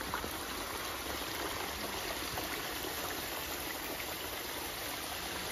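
Steady, even rushing noise with a few faint clicks.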